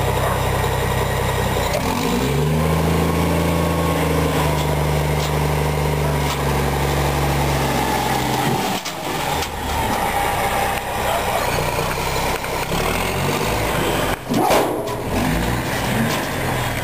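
Tandem dump truck's diesel engine revving up about two seconds in and held at high, steady revs to drive the hydraulic hoist lifting the loaded dump bed, then dropping back to a lower, uneven run as the topsoil slides out. A single sharp bang near the end.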